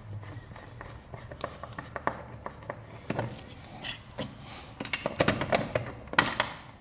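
Screwdriver driving the mounting screws of a push-button station and hands handling its housing: a run of irregular small clicks and knocks, thicker and louder in the last couple of seconds.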